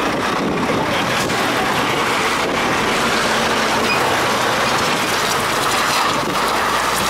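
Articulated lorry with a curtain-sided trailer passing slowly close by, its diesel engine and rolling wheels making a loud, steady noise.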